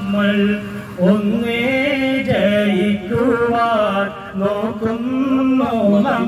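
A man sings a devotional Nabidinam (Prophet's birthday) song into a handheld microphone, in long, ornamented notes that slide and waver between pitches, with short breaks for breath.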